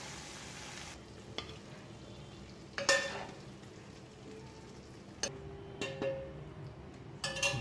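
Chicken 65 sizzling in the pan for about a second, then a spoon scraping and clinking against the pan as the chicken is dished out, with a few sharp clinks spread through the rest.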